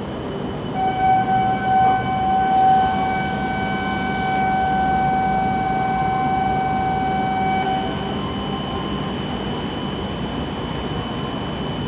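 Shinkansen platform departure signal: a steady electronic tone that starts about a second in and stops after about seven seconds, over the constant hum of the station and the standing train.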